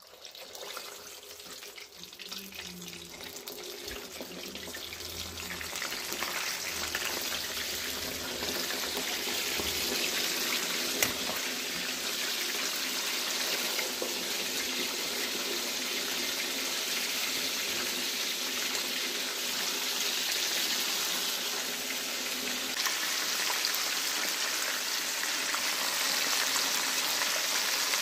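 Chicken pieces deep-frying in very hot oil for their second fry: a steady sizzle that builds over the first several seconds as the pieces go in, then holds. One sharp click about eleven seconds in.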